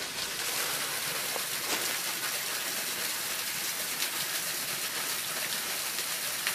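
A small, partly frozen waterfall, water falling and splashing steadily beneath its icicles.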